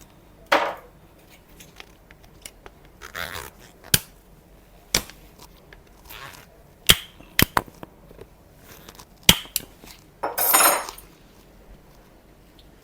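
Plastic parts of a Shark cordless stick vacuum being handled and its small wheels pried out: a scattered series of sharp clicks and knocks, with three short scraping sounds, the longest about ten seconds in.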